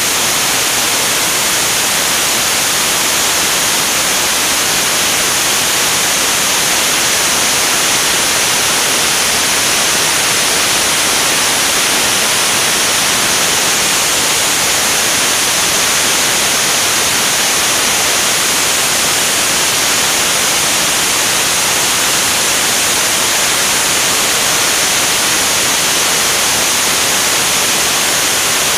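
Steady rushing wind noise from airflow over a camera mounted outside a jet aircraft in flight: an even hiss, strongest in the high range, with no change in level.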